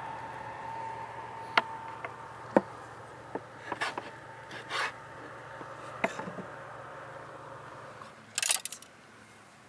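Sharp clicks and short scrapes of a steel skewer and eel pieces being handled on a wooden cutting board, over a faint steady hum in the first few seconds. Near the end, a louder brief metallic rattle as skewers are handled over the metal grill rack.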